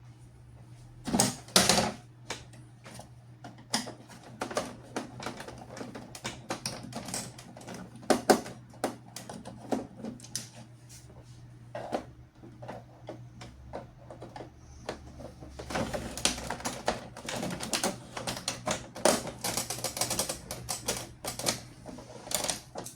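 Epson L3150 inkjet printer's mechanism clattering with a long run of irregular clicks and knocks after power-on, over a steady low hum. This noise at switch-on, with the lights flashing, is typical of a dirty encoder disc or a faulty encoder sensor, which the owner suspects.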